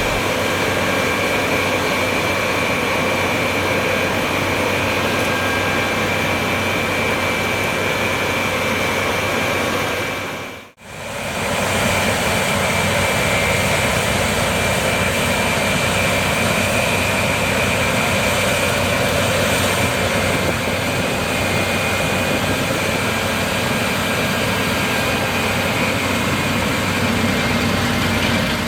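New Holland CR 11 combine harvester running at work threshing soybeans: a steady engine and machinery noise with a high whine. It fades out briefly about eleven seconds in, then returns the same.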